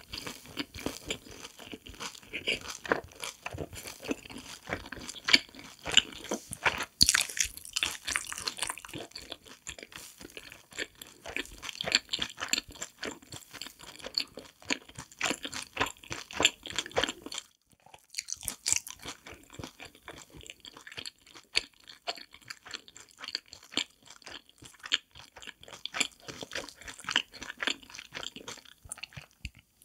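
Close-up crunching and chewing of crispy fried cheese balls coated in sweet-savoury seasoning powder, a dense run of irregular crisp crackles with a brief break a little past halfway.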